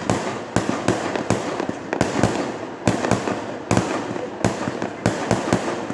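Fireworks display: a rapid barrage of shell bursts, two or three bangs a second, over dense, unbroken crackling. Very loud.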